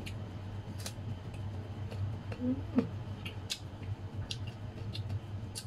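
Mouth chewing slices of mango dipped in shrimp paste, giving scattered short crunching clicks, with a brief hummed vocal sound a little under three seconds in.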